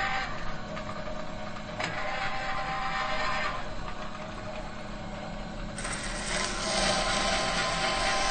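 Metal machinery humming steadily, a drone with a few held tones over a mechanical whirring noise, with a single click about two seconds in. About six seconds in it abruptly becomes louder and brighter.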